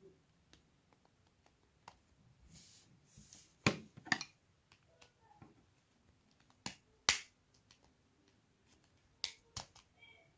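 Sharp clicks and taps from handling the plastic faceplate and circuit board of a car cassette stereo while taking it apart, with a short scraping hiss before the first clicks. The clicks come in three close pairs a few seconds apart, with the pair a little before the middle the loudest.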